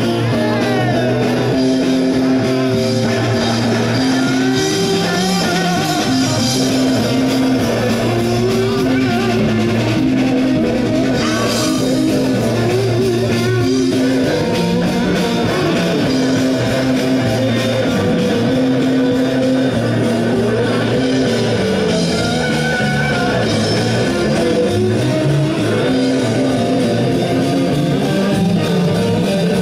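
Rock music with electric guitar, a steady bass line and drum kit, and a singing voice over it.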